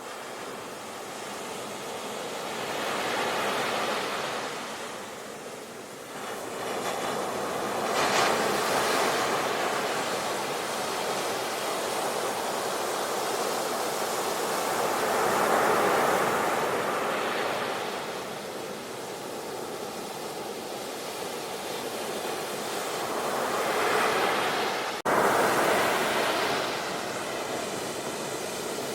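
Ocean surf, waves washing in and swelling every few seconds, with a sudden break in the sound near the end.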